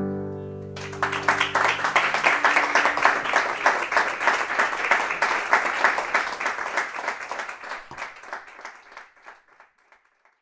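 The final chord of a classical guitar rings out and fades, and about a second in a small audience starts applauding. The clapping is steady at first, then thins and dies away near the end.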